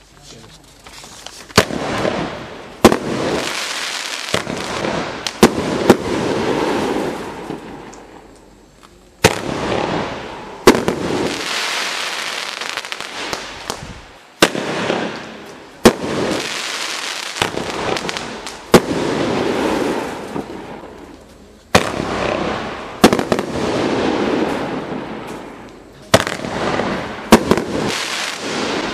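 A 500 g, 22-shot consumer fireworks cake firing. Sharp reports come every one to three seconds, and each is followed by a few seconds of dense crackling that fades before the next shot.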